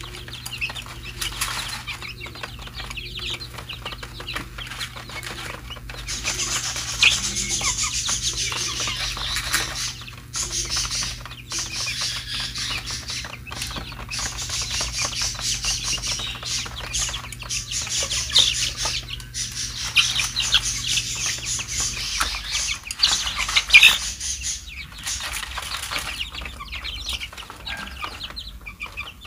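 A flock of 23-day-old chicks peeping continuously while pecking grain from a plastic feeder tray, with many short sharp pecking clicks and occasional wing flutters.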